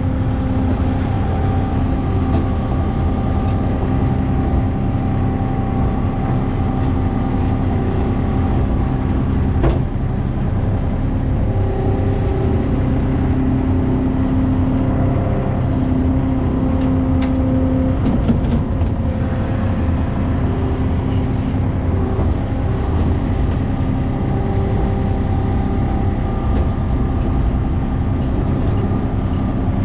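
ASV RT-40 compact track loader's diesel engine running steadily under load, heard from inside the cab, while the bucket digs and lifts dirt. A higher whine comes and goes over it, and there is a sharp knock about ten seconds in.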